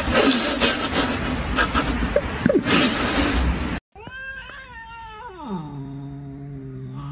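Two cats fighting: a loud rough scuffling noise with a couple of brief squeals, which cuts off suddenly. Then a cat's long yowl that drops steeply in pitch into a low, drawn-out growl.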